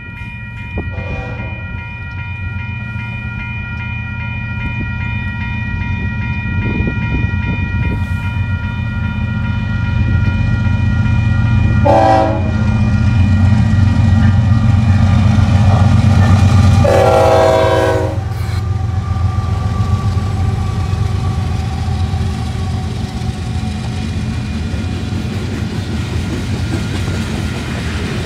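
Union Pacific GE C44ACM diesel locomotives approach and pass hauling a grain train. Their engine rumble builds to its loudest around the middle, and the horn sounds briefly about a second in, again about twelve seconds in, and once more for longer a few seconds later. A bell rings at the start, and in the second half the covered hopper cars roll by with a clickety-clack.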